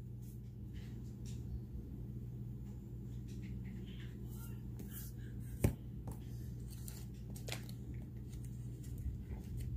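A shaker of garlic powder shaken over raw beef short ribs: faint scattered ticks and shakes over a low steady hum, with one sharper tap a little past halfway.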